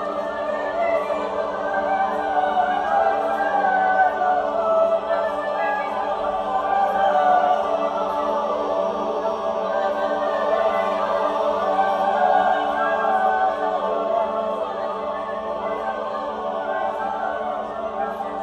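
Mixed choir singing a sustained choral passage that swells in the middle and eases off toward the end.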